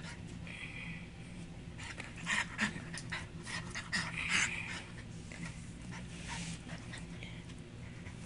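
Small Chihuahua-terrier mix puppy panting and scuffling in rough play with a toy, in irregular short bursts.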